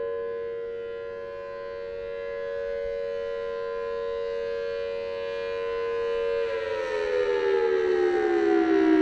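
Federal Signal Thunderbolt 1003A rotating siren sounding a steady two-note chord, its loudness dipping and swelling as the horn turns. About two-thirds of the way through, the pitch starts falling steadily as the siren winds down at the end of its 3-minute alert signal.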